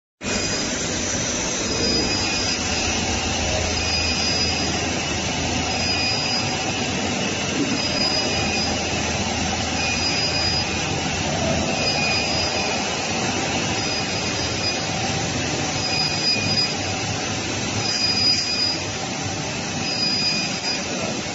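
Continuous bright annealing furnace line running: a steady industrial drone and hiss. A short high tone repeats about every two seconds.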